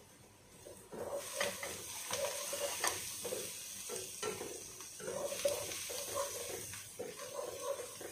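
Wooden spoon stirring and scraping chopped onions frying in a coated pot, with a steady sizzle from the hot oil. The stirring starts about a second in and goes on in repeated strokes.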